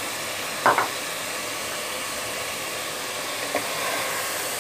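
Spice masala and soya chunks sizzling in oil in a pan, a steady hiss. A short clatter comes a little under a second in, and a faint tick later on.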